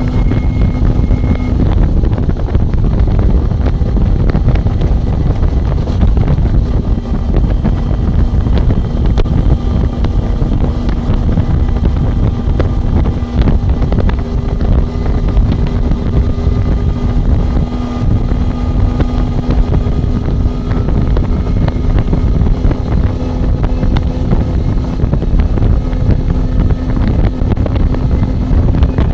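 Loud wind buffeting on the Nokia N8 phone's microphone from a car moving at speed: a steady, heavy rumble with a faint steady hum underneath.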